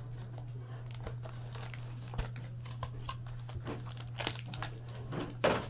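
Plastic packaging and trading cards handled, crinkling and rustling in many short, irregular crackles, a few louder near the end, over a steady low hum.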